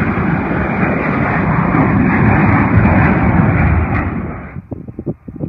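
Jet engines of a McDonnell Douglas twinjet airliner at takeoff power as it climbs out: a loud, deep, rumbling roar that cuts off abruptly near the end.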